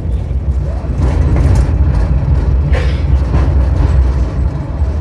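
Tunnel cable car running along its track: a steady low rumble with a rattling clatter above it and a few short clacks, the sharpest about halfway through.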